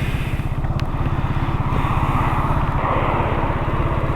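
Motorcycle engine idling in neutral, a steady, even low pulsing.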